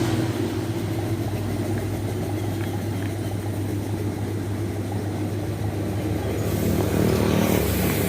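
An engine running steadily, giving a low, even hum.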